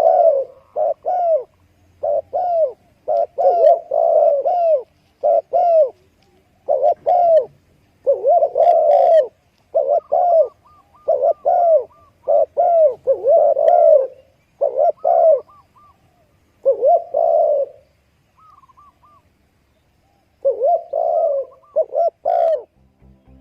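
Spotted dove cooing: phrases of low, repeated coo notes with short pauses between them, and a longer break about three-quarters of the way through before the cooing resumes.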